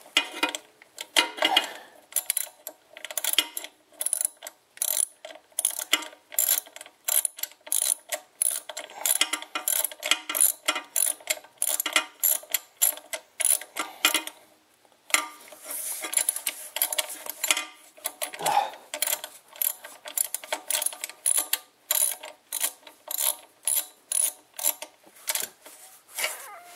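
Socket ratchet clicking in quick repeated strokes as an intake manifold cap screw is tightened down, with a short pause about halfway through.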